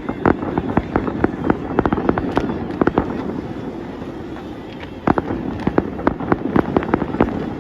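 Fireworks display: rapid cracks and pops over a continuous low rumble, in two dense volleys with a thinner lull about halfway through.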